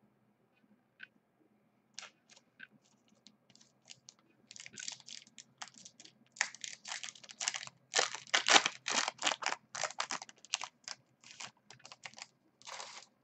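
Foil wrapper of a Bowman Platinum baseball card pack being torn open by hand: a few light clicks at first, then dense, irregular crinkling from about four seconds in.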